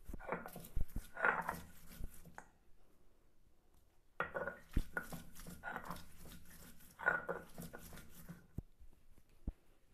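A stone muller crushing and grinding garlic cloves on a flat sil-batta grinding stone: sharp knocks and crunches with rough scraping, in two bouts with a short pause between.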